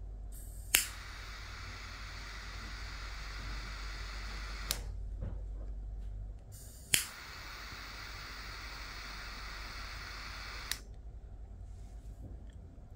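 Butane jet torch lighter fired twice to heat a vaporizer's brass tip: each burn starts with a sharp ignition click, hisses steadily for about four seconds, and stops with a click when released.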